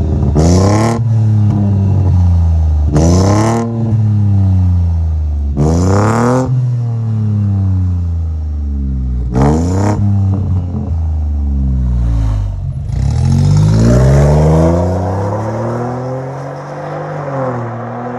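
Exhaust of a BMW 1 Series (F20) hatchback, its stock system reworked and split into twin chrome tips. The engine is blipped sharply four times at standstill, each rev rising and falling back to idle. Then it pulls away in one longer climbing run that fades as the car drives off.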